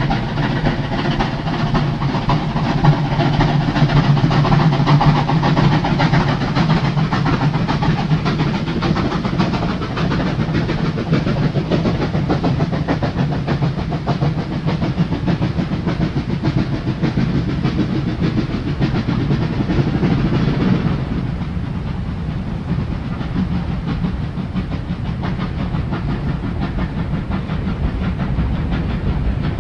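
Steam locomotive at work, a steady loud mix of exhaust, steam hiss and rolling wheels. About two-thirds of the way through the sound turns duller and loses its upper range.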